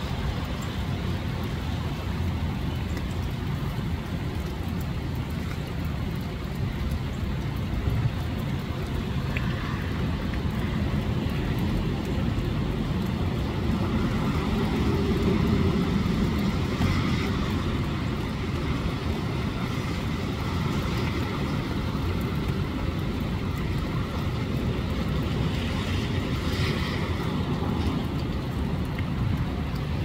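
Storm wind gusting and heavy rain falling, with a car driving past on the wet street about halfway through.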